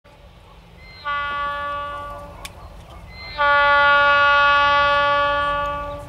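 Norfolk Southern diesel locomotive's air horn sounding from far down the track: one blast of just over a second, then after a short gap a longer, louder blast that fades near the end.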